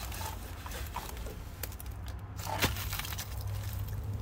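Rotten steel sill and body filler on a Talbot Express campervan crackling and crunching as it is handled, a sign of how far the rust has gone. There is one sharp crack about two and a half seconds in.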